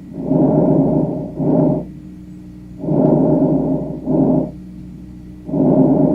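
Recorded lung breath sounds as heard through a stethoscope: a repeating breathing cycle, each one a longer sound followed after a brief gap by a shorter one, a little over two cycles in all. A faint steady hum runs underneath.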